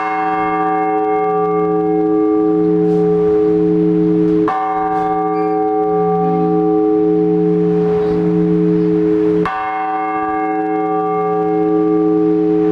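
A single large Orthodox church bell tolled slowly, struck three times about five seconds apart, each stroke ringing on with a low wavering hum under bright overtones. This is the slow tolling that calls worshippers to the All-Night Vigil.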